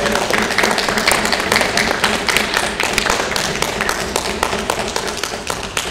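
A small group clapping hands in applause, dense and irregular, thinning slightly toward the end.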